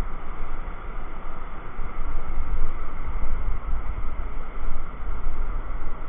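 Sea surf breaking and washing up onto a sandy beach, an even noise that swells and ebbs, with wind buffeting the microphone in a low rumble.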